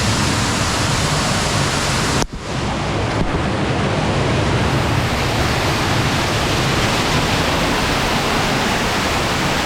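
Cave waterfall rushing: a loud, steady wash of falling water that briefly drops out a little over two seconds in.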